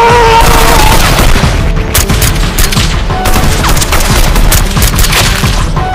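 Rapid, overlapping gunfire in bursts, as in a firefight, with a loud boom near the start, over a background music track.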